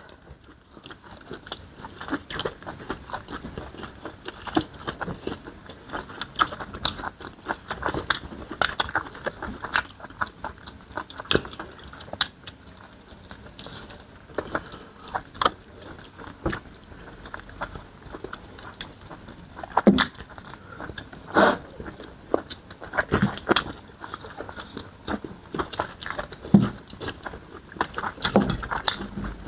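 Close-up eating sounds from a meal of starch fufu, banga soup and smoked chicken: irregular biting, chewing and crunchy mouth clicks. A few louder snaps come in the second half.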